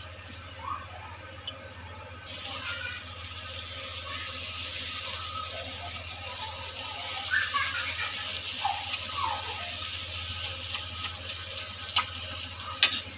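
Golgappa puris deep-frying in hot oil in a kadhai: a steady sizzle that swells about two seconds in as fresh dough rounds bubble in the oil. A couple of sharp clinks of the slotted metal spoon against the pan come near the end.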